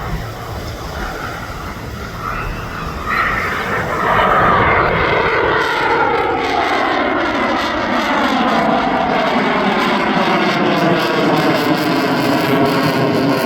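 Boeing F/A-18F Super Hornet's twin jet engines passing overhead: the jet noise grows suddenly loud about four seconds in, then a set of tones sweeps steadily down in pitch as it flies by. Low wind rumble on the microphone at first.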